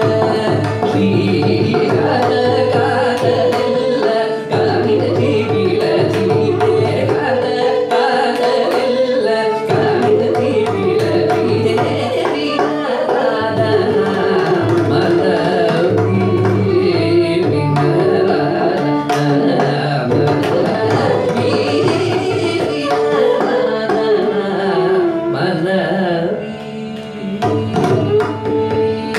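Carnatic classical music: a male vocalist singing over a steady drone, with quick hand-drum strokes from the mridangam throughout. The music drops briefly in loudness near the end.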